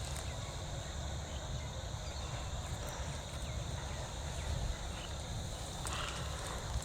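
Outdoor ambience of steady, high insect calls over a low rumble, with a couple of short clicks near the end.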